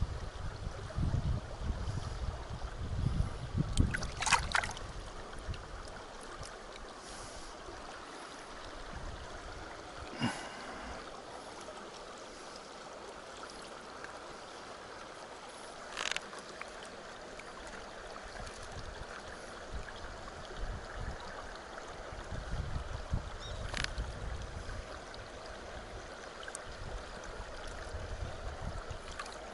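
Shallow river running over rocks, a steady rush of water. Low rumbling gusts hit the microphone in the first few seconds and again later, and a few sharp clicks sound now and then.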